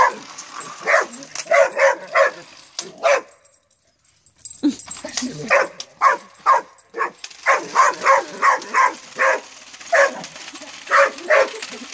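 Dog barking over and over in quick runs of short barks, pausing for about a second a few seconds in before starting again.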